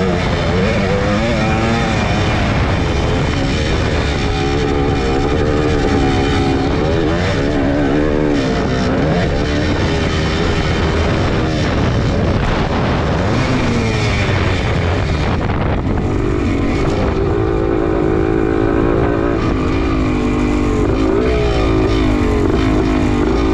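Suzuki PE250's two-stroke single-cylinder engine ridden hard, revving up and down through the gears, its pitch rising and falling again and again.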